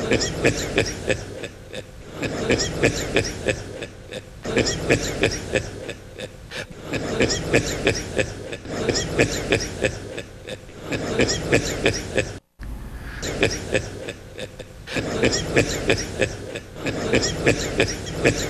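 A man laughing heartily, the same laugh repeating about every two seconds as a loop, with a short break about twelve seconds in.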